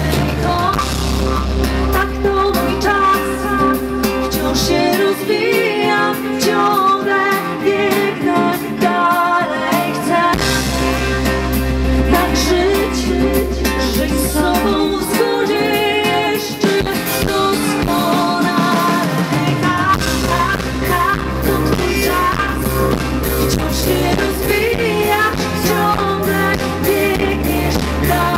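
Live band music from the stage: acoustic guitar and electric bass under a woman singing with vibrato. The deep bass drops out twice, for a few seconds each time.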